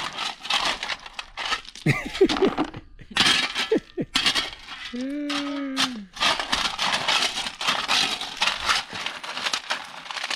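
Ballast (crushed stone) scraping and clattering in repeated bursts as it is scooped up and tipped out by hand.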